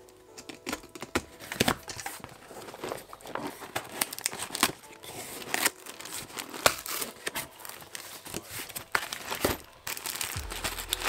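A cardboard parcel being torn open by hand: packing tape and cardboard flaps ripping, with paper crinkling, in quick irregular rips and rustles.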